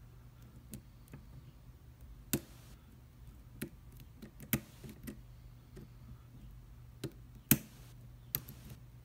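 Sharp, irregular metallic clicks of a lock pick and tension wrench working in a USA-made Commando padlock, about eight in all and loudest about two-thirds of the way through.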